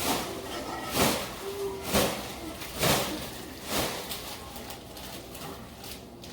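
Hot dogs frying in butter in a skillet: four short bursts of sizzling about a second apart, each fading quickly, over a steady low hiss.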